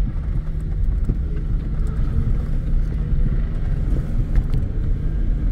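Truck engine running with a steady low rumble.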